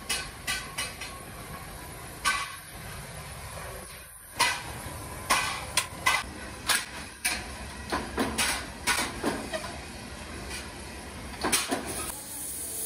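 Steel chaff cutter blades cut from old leaf springs clinking and clanking against one another as they are handled and stacked on a pile, in an irregular run of sharp metallic knocks with a short lull early on. Near the end, a gas torch starts hissing steadily.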